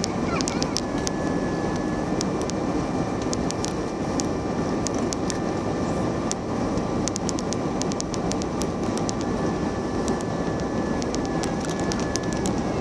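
Steady roar of jet engines and rushing air heard inside an airliner cabin, with a faint steady whine above it. Scattered small clicks sound throughout.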